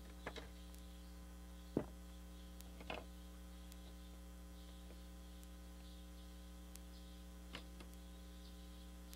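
Steady electrical mains hum, with a few light knocks and taps from handling: one sharper knock about two seconds in as the cordless drill is set down on the table, and softer taps as the wooden blocks and aluminium screen frame are shifted. The drill does not run.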